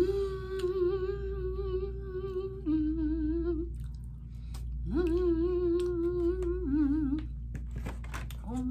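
A woman humming in two long held notes, each two to three seconds, with a wavering pitch, between bites of cake. Several light clicks and knocks come near the end.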